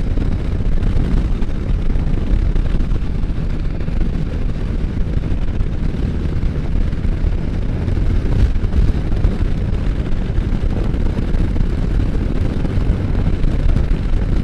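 Wind rumbling on the microphone over the running engine and road noise of a Can-Am Spyder three-wheeled motorcycle under way.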